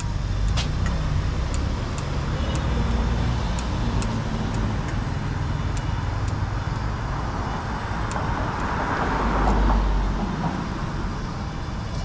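Street traffic running steadily, with one vehicle passing that swells loudest about nine or ten seconds in. Light metal clicks of tongs against a small bowl recur every second or so.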